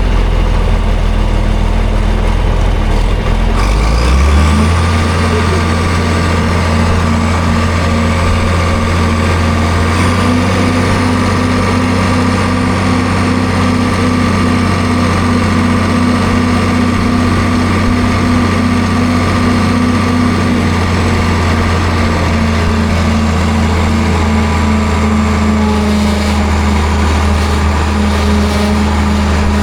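A vehicle engine running loudly, revving up about four seconds in and then holding steady at the higher speed.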